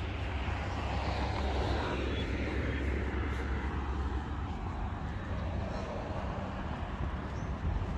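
A vehicle passing by, its noise swelling over the first couple of seconds and then fading with a falling pitch, over a steady low rumble.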